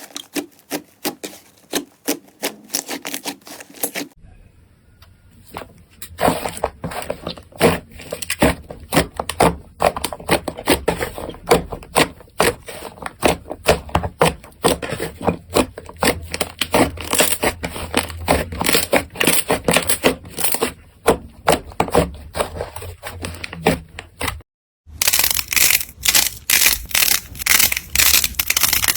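Slime being squeezed and pressed by hand, making dense crackling, clicking and popping. The sound changes character twice: a quieter stretch about four seconds in, and a brief gap of silence near the end.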